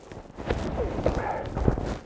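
A backpack being swung off the shoulders: rustling of a nylon jacket and pack straps, with boots shifting and crunching in deep snow. Starts about half a second in, with a few short knocks and squeaks.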